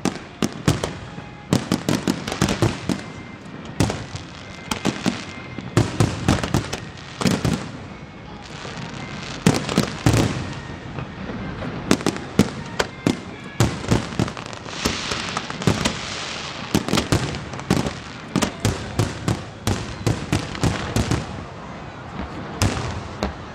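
Fireworks display: a rapid, irregular barrage of bangs and pops, thickening into a stretch of dense crackling about two-thirds of the way through.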